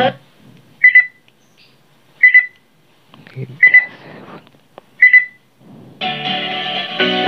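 Portable Bluetooth speaker giving four short high beeps, about one and a half seconds apart, as its equalizer mode is stepped with the remote. Music cuts out before the beeps and plays again about six seconds in.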